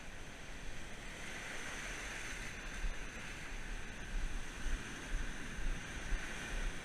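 Rough ocean surf breaking and washing up the beach, the wash swelling about a second in, with wind gusting on the microphone.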